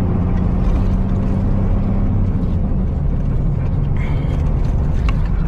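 Truck diesel engine running, heard from inside the cab as a steady low drone; its pitch drops a little about halfway through.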